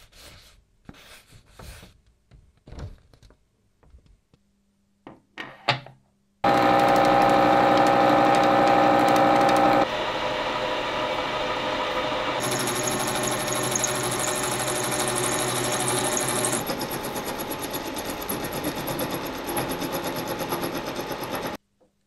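Paper rustling and handling clicks, then a manual milling machine cutting a dovetail into a block of H13 tool steel with a dovetail cutter: a loud, steady machining sound with a ringing tone, changing abruptly a few times and cutting off suddenly near the end.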